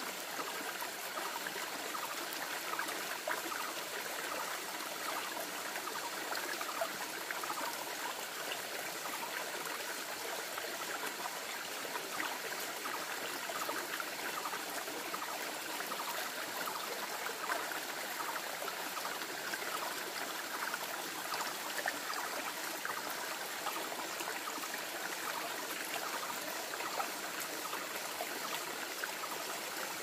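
Shallow forest stream running over rocks, a steady trickling babble with little bass.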